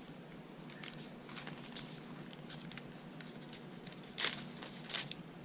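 Paper rustling and small handling clicks as a handmade junk journal's paper pages and inserts are handled and turned, with two louder papery swishes about four and five seconds in.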